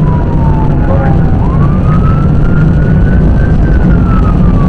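Police car wail siren heard from inside the car's cabin over a loud, steady engine and road rumble. The siren sweeps slowly: falling, rising through the middle to a peak, then falling again.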